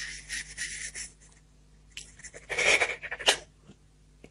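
A woman sniffling and breathing out in short, hissy puffs behind her hand as she weeps, with a brush and a sharp click from her hand and arm rubbing against the phone.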